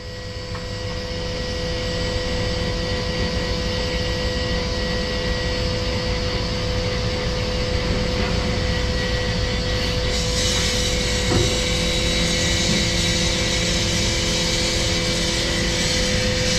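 Heavy scrap-yard machinery running: a steady engine rumble with a high, even whine. It fades in over the first couple of seconds, and more high hiss joins about ten seconds in.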